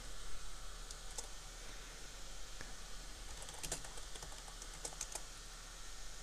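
Computer keyboard keys clicking in short scattered groups: a couple of taps about a second in, then a quicker run of clicks from about three and a half to five seconds in.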